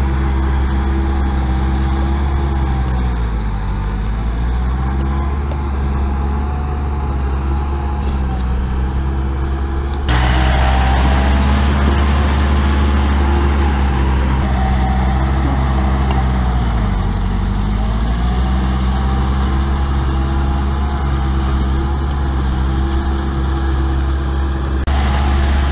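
Kubota walking tractor's single-cylinder diesel engine running steadily under load while it churns the pond mud. Its pitch sags twice as the engine labours, then recovers, and the sound turns abruptly louder about ten seconds in.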